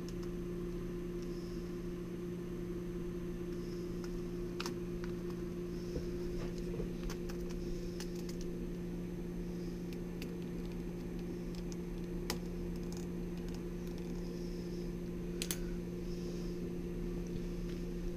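Steady electrical hum with small clicks and taps from a small screwdriver and wires being worked into a controller board's screw terminals, with a few sharper clicks scattered through.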